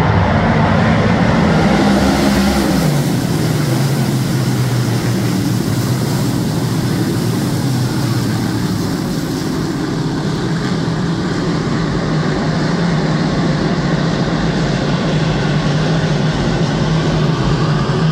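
A field of big-block dirt modified race cars running, their V8 engines loud and continuous. The combined engine note drops in pitch about three seconds in, then holds steady.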